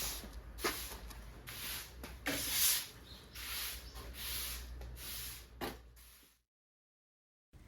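Workshop noise: a run of short hissy rubbing strokes, roughly one a second, a few starting with a click, cut off abruptly to silence about a second before the end.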